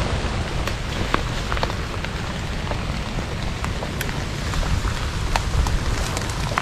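Steady rain, with scattered drops ticking sharply on nearby surfaces over a low rumble.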